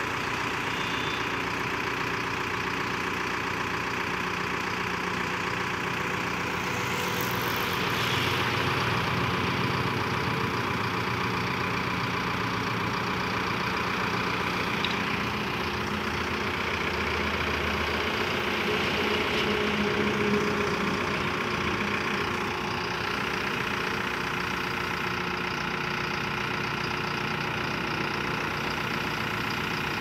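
Manitou Ranger backhoe loader's diesel engine running steadily while the backhoe boom is worked on the hydraulics. It picks up a little about eight seconds in and again around twenty seconds.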